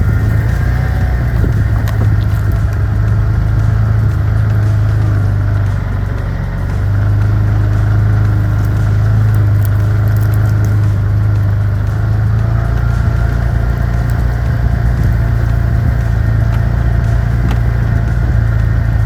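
Small Chinese mini excavator's engine running steadily under load, with faint steady hydraulic whine above it; the engine note sags briefly about six seconds in.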